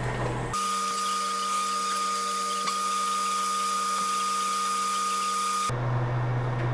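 Hot air rework station blowing on a logic-board chip to desolder it: a steady high-pitched whine with a hiss. It starts suddenly about half a second in and cuts off abruptly near the end, with a low steady hum before and after.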